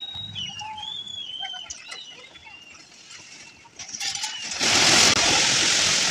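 Birds chirping in short, repeated arching calls for the first few seconds. About four and a half seconds in, a loud, steady rushing roar of floodwater sets in as a building collapses into the torrent.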